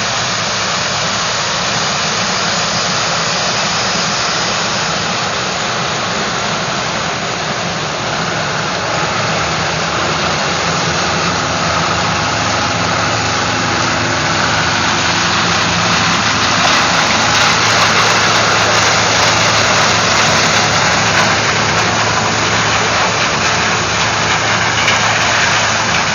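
Diesel engines of a combine harvester and a big farm tractor running steadily under load, a low engine drone under a dense rushing machine noise that grows somewhat louder about ten seconds in.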